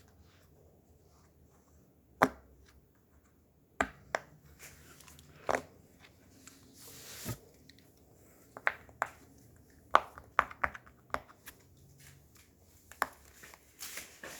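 Hands handling a small plastic fidget toy and its packaging: scattered sharp clicks and taps, with a brief rustle about seven seconds in.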